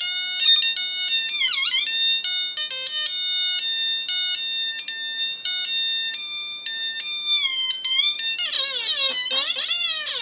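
Light-sensor theremin built around two 555 timer oscillators and light-dependent resistors, sounding an electronic tone through a small 8-ohm speaker as hands shade the sensors. The pitch jumps between held notes, then warbles in quick up-and-down swoops near the end.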